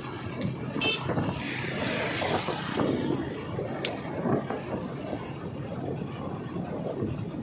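Wind buffeting the microphone on a moving motorbike, with the engine running underneath as a low, uneven rumble.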